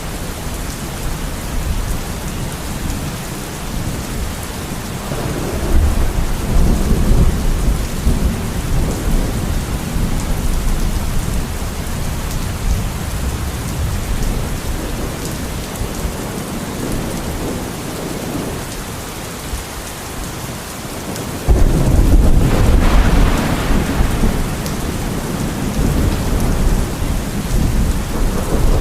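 Steady heavy rain with thunder: a low rumble builds about five seconds in, and a louder thunderclap breaks suddenly about 21 seconds in and rolls on for several seconds.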